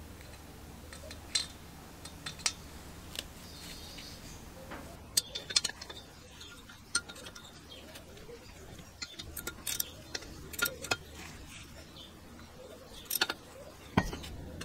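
Scattered metal clicks and clinks of hand tools and engine parts being handled while a rusty small two-stroke engine is taken apart. There is a sharper metal knock near the end, as a wrench is worked on the flywheel nut.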